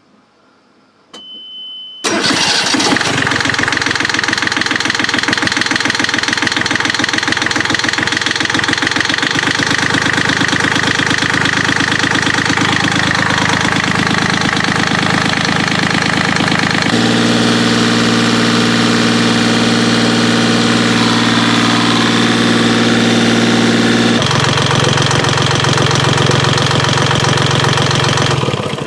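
Yanmar 3GM30F three-cylinder marine diesel cranking briefly and catching about two seconds in, then running steadily at idle: the freshly reassembled engine starting and running.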